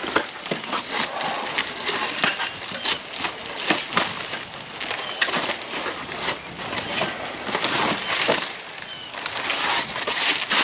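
Old roof shingles being torn off the deck: repeated scraping and crunching, with sharp knocks and clatters throughout.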